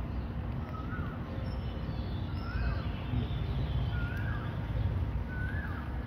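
A bird repeating a short chirp that rises and falls, four times, about a second and a half apart, over a steady low background rumble.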